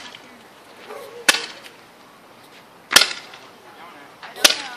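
Fireworks going off: three sharp bangs about a second and a half apart, each trailing off in a short echo.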